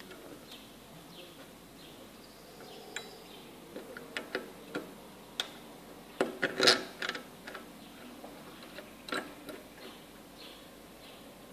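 Scattered small clicks and taps as a brass washer and a knurled metal knob are handled and fitted onto a threaded rod on a 3D-printed plastic syringe holder. A quick cluster of louder clicks comes a little past the middle, with a few more taps about two seconds later.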